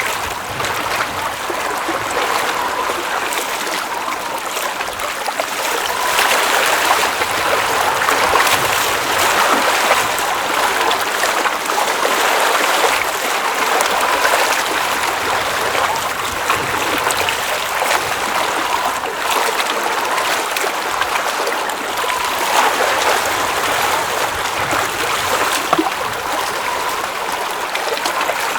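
Water running and trickling at the edge of a glacial mountain lake: a steady, continuous babbling with small splashes flickering through it.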